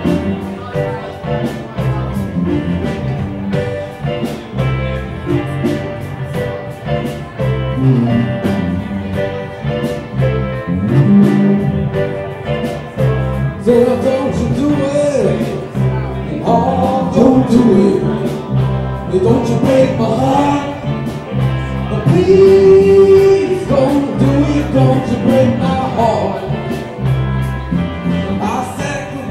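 Live band playing with guitars and a drum kit keeping a steady beat, instrumental for the first half. About halfway through, a man starts singing over it.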